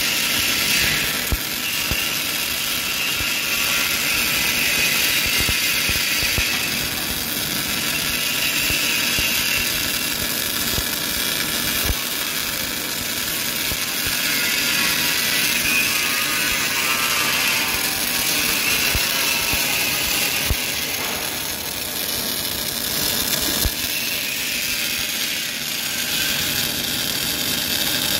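Welding arc of a CLOOS linear seam welder's MIG torch sizzling steadily as the torch runs along a seam, with a few sharp pops of spatter scattered through it.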